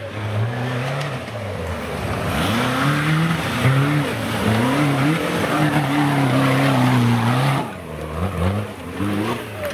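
A modified off-road 4x4's engine revving hard in repeated rising and falling surges as it claws up a steep muddy slope, over a steady hiss of tyres spinning and throwing mud. The engine is held high for a few seconds, then the revs drop away sharply about eight seconds in as it reaches the top beside the microphone.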